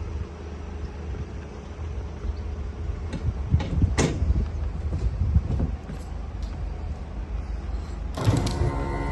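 Several sharp knocks and clicks over a steady low rumble, typical of a van's doors and panels being handled. Music begins near the end.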